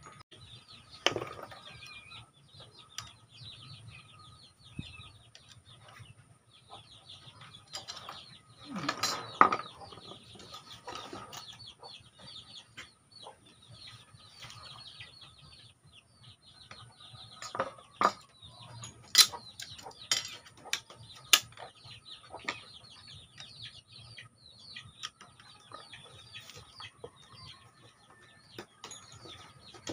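Chickens clucking, with rapid high chirping going on throughout. Several sharp knocks and clatters of a wooden board and tools being handled on a workbench stand out above it.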